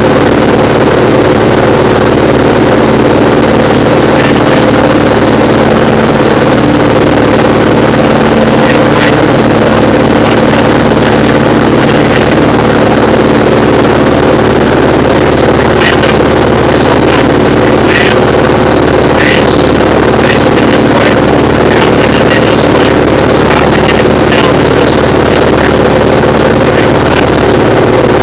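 Diamond DA20 Eclipse's four-cylinder Continental engine and propeller running steadily in flight, heard as a loud, even drone inside the cockpit. A few brief high clicks sit over it in the second half.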